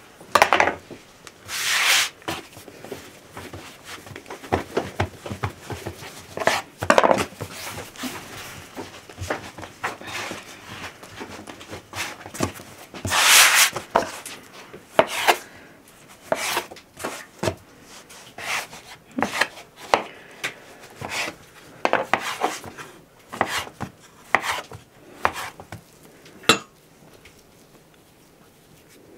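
A knife cutting dough on a wooden board, then hands working and rolling pieces of dough on the floured board: a long run of scattered knocks, taps and short rubbing noises, with a longer scrape about halfway through.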